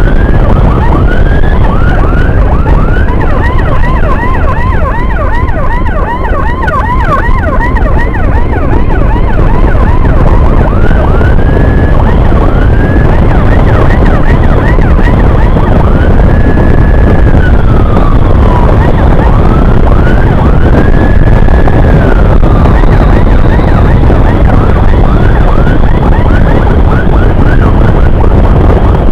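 Electronic siren switching between a fast yelp, about three sweeps a second, and slower rising-and-falling wails. It plays over a steady low rumble of wind and engine from the moving motorcycle.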